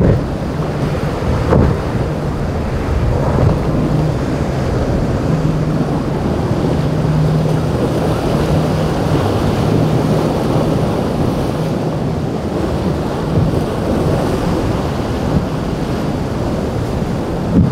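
Monterey cabin cruiser's engine droning steadily as it runs through rough inlet waves, under a constant rush of water and spray. Wind buffets the microphone, with a few brief thumps along the way.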